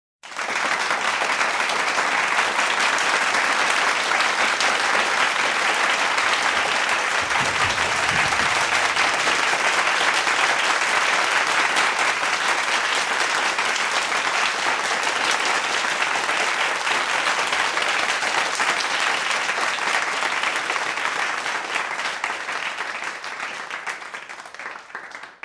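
A medium-sized crowd applauding steadily, a dense mass of clapping hands that starts at once, holds, and thins out and dies away over the last few seconds. A brief low thump sounds about eight seconds in.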